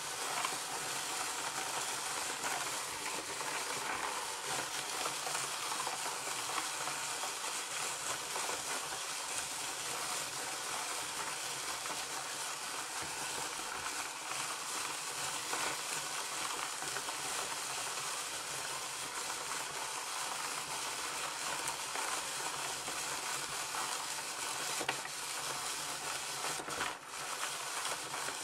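Tyco Doctor Dreadful Ice Scream Machine being hand-cranked: its plastic crank and gears turn the chilled drum through the chocolate mix in the tray while the mix freezes onto the drum. The sound is a continuous, even swishing whir with no distinct clicks.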